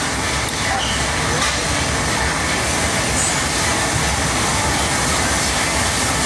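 Steady, loud background noise that holds at one level with no distinct events.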